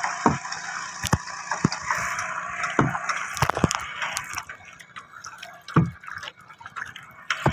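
Water splashing and dripping from a paddle in irregular strokes, a few sharp splashes a second or so apart.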